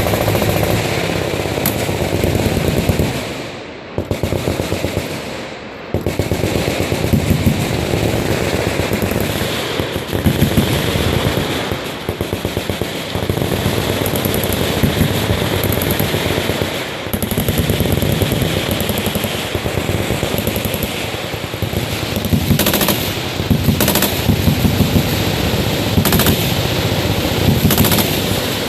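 Machine guns firing almost without pause, dense rapid fire with two short lulls about four and six seconds in.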